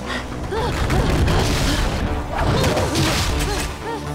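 Cartoon soundtrack: music mixed with crashing and banging effects, scattered with many short tones that swoop up and back down in pitch.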